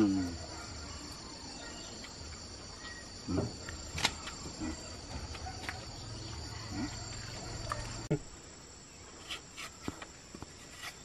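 A steady, high-pitched chorus of insects chirring, with a few scattered small clicks and knocks.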